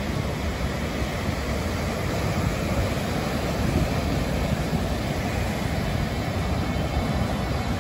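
Steady roar of surf breaking and washing up a sandy beach, with wind rumbling on the microphone.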